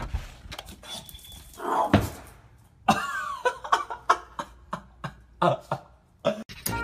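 Pug snorting and snuffling in a quick run of short bursts, with a single sharp knock about two seconds in.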